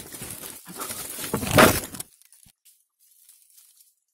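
Leafy branches rustling and crackling as they are handled and shaken, loudest about one and a half seconds in and stopping abruptly about two seconds in.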